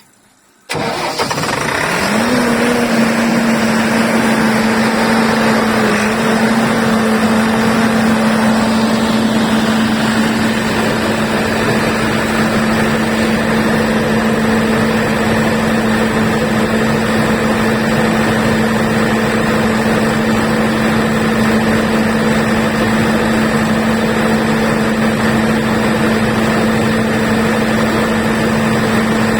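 Diesel generator starting up about a second in, its engine quickly rising in pitch to its set speed and then running steadily at a constant pitch.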